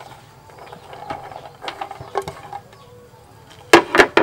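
Cut long beans dropping into a mortar with light clicks and rustles, then three loud knocks close together near the end as a wooden pestle starts pounding them.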